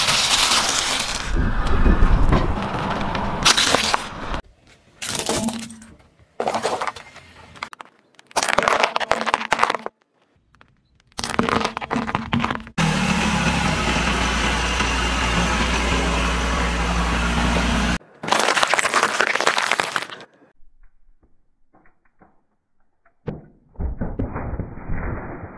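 A run of separate short takes of a car tyre rolling onto crunchy things and crushing them, with cracking and crunching as wafer ice-cream cones and other items break under the wheel. The takes cut in and out abruptly, and a steadier stretch of noise with a low hum lasts about five seconds in the middle.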